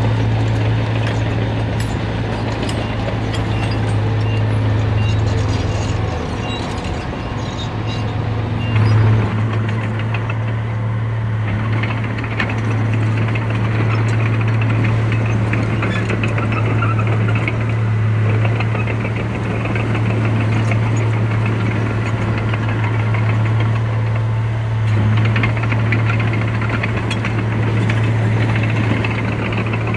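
Heavy diesel engine of earthmoving machinery running steadily under load, with a brief louder surge about nine seconds in.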